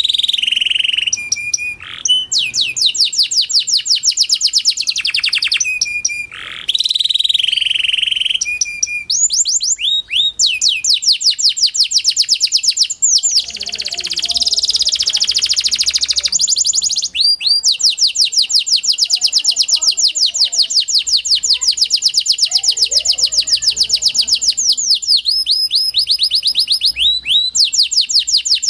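Pied ("panda") canary singing: phrases of rapid trills of repeated high notes, broken by short pauses, with one long unbroken trill in the second half.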